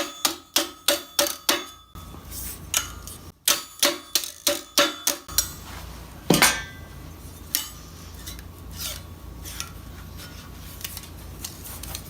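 Hammer strikes on a steel gorget plate being bent over a pipe, with the metal ringing faintly. There is a quick run of blows about three a second, a short pause and a second run, then one heavier blow about six seconds in, followed by lighter, scattered taps.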